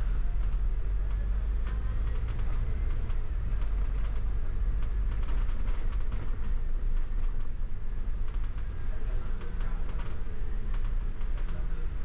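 Inside a double-decker bus on the upper deck: a steady low engine and road rumble, with frequent small clicks and rattles from the bus's body and fittings.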